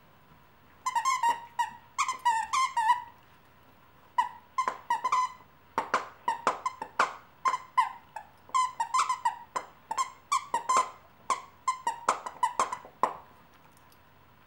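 A dog chomping on a squeaky plush toy: repeated short, high squeaks in quick clusters of several a second, stopping about a second before the end.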